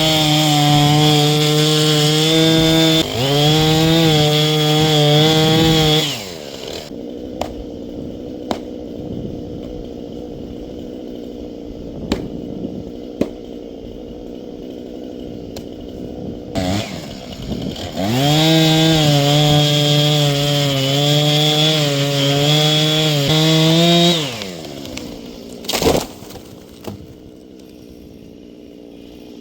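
Husqvarna 460 two-stroke chainsaw held at full throttle for about six seconds, dropping to a lumpy idle for about twelve seconds, then run up to full throttle again for another six seconds before falling back to idle. A few sharp ticks sound during the idles.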